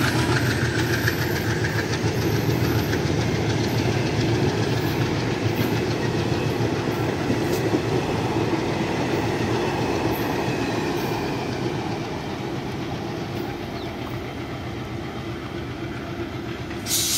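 Passenger coaches rolling past on departure, their wheels clattering over the rail joints; the sound slowly fades after about ten seconds as the train pulls away. A brief burst of hiss near the end.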